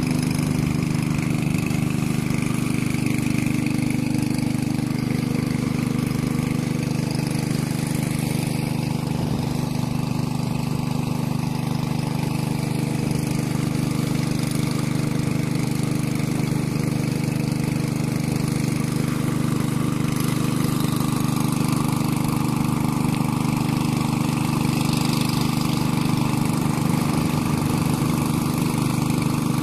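Small engine running steadily at one constant speed, most likely the motor of a water pump draining the ditch through a blue hose.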